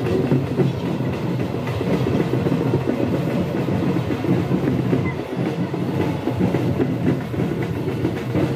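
Diesel tractor engine running steadily with a low, rough, knocking rumble.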